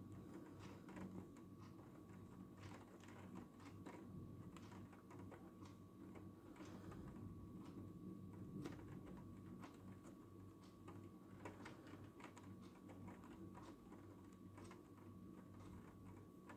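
Faint, irregular ticking of raindrops landing on nearby surfaces, over a low steady hum.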